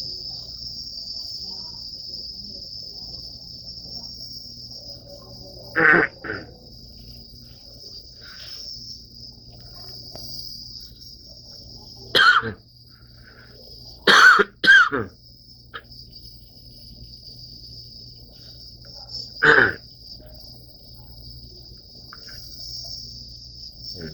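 A man's dry coughing from an asthma attack: five short coughs spread out, two of them in quick succession. A steady high-pitched cricket chirring goes on underneath.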